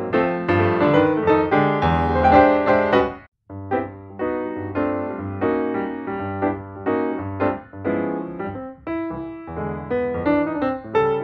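Background piano music with a steady flow of notes and chords that breaks off for a moment about three seconds in.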